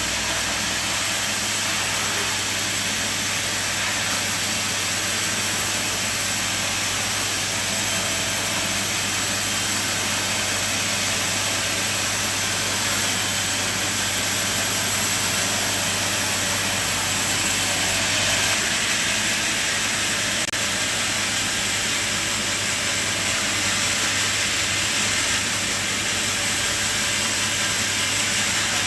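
Sawmill machine running steadily, an even continuous noise over a constant low engine hum, as it saws a log into boards.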